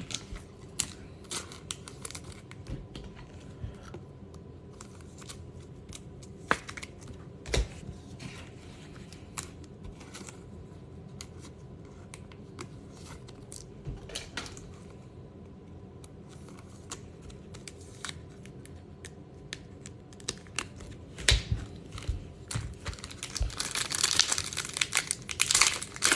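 Scattered light clicks and taps of trading cards being handled, then, near the end, the crinkling and tearing of a baseball card pack wrapper being opened.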